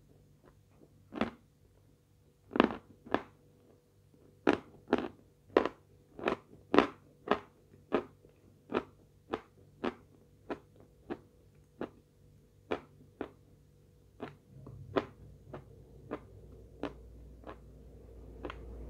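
A person chewing edible chalk with crisp, close-up crunches, about one or two a second, growing softer toward the end.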